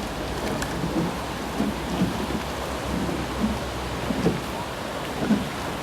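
Wind buffeting the microphone: a steady rushing hiss over a low rumble.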